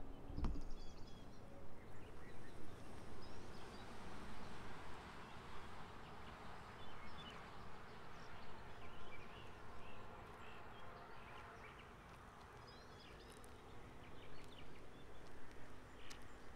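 Faint outdoor ambience while waiting for the train: gusty rumble of wind on the microphone, with scattered bird chirps and an insect buzzing.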